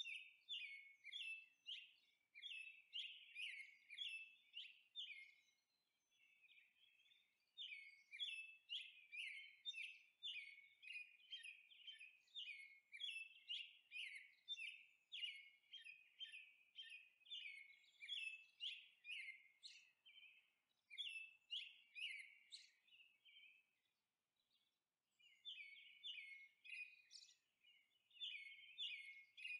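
Faint chirping of small birds: quick, evenly repeated notes about three a second, breaking off briefly twice.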